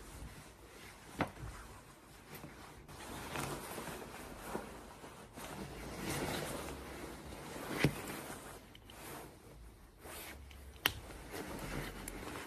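Quilted nylon puffer jackets rustling as they are pulled on and adjusted, the rustle swelling and fading. There are three sharp clicks, about a second in, near eight seconds and near eleven seconds.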